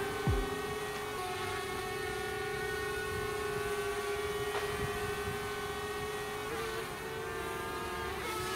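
Small quadcopter drone hovering, its propellers giving a steady whine, wavering in pitch a few times near the end.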